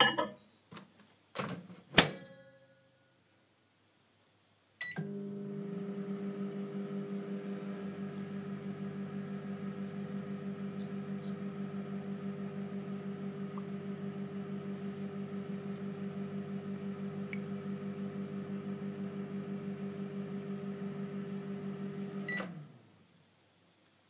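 Microwave oven: a few sharp clicks and a loud knock with brief ringing, then about five seconds in it switches on with a click and runs with a steady, slightly pulsing hum for about seventeen seconds before stopping with a click near the end.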